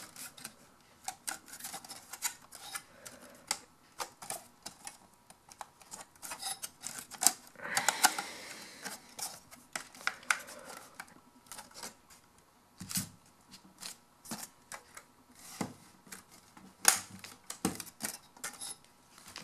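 A stamped sheet-metal DIN sleeve being slid and worked onto a car stereo receiver's metal chassis: irregular metal clicks and taps, with a longer scrape about eight seconds in. There are sharper clicks later, as the sleeve locks into place.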